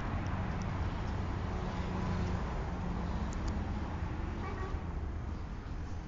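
Steady low rumbling background noise with a hiss above it, thinning somewhat near the end.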